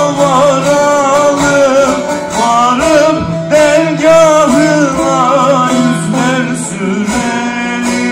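Bağlama (saz) playing a semah tune while a singer sings a deyiş over it, the melody bending in ornamented turns above a steady low note.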